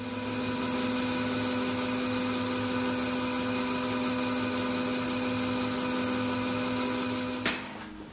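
Small metal lathe running steadily, with a constant motor hum and whine, while a flat-topped tool turns down the outside diameter of a brass chronometer wheel to remove its damaged teeth. The sound cuts off sharply near the end.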